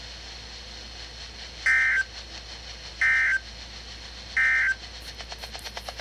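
Three short two-tone data bursts, about a second and a bit apart, from a Midland weather radio's speaker: the SAME end-of-message code that closes a NOAA Weather Radio alert. They sit over a faint steady hiss and high whine from the radio.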